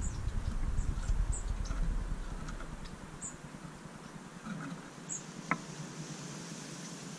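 Small taps and scratches of a European goldfinch's beak and feet on a metal mesh feeder, with faint high ticks and one sharper click about five and a half seconds in. A low rumble fades out about three seconds in.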